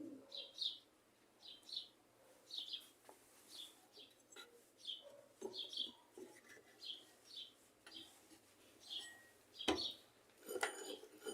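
A bird chirping repeatedly in the background: short high chirps, roughly one a second, faint. There are light handling clicks throughout and a sharp knock about ten seconds in.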